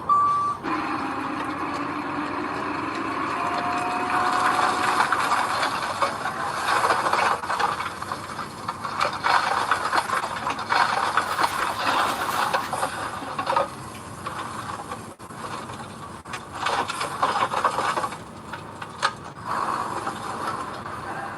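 Heavy earthmoving machinery working loose soil: a diesel engine running under a steady rattling, scraping noise broken by frequent knocks and clanks.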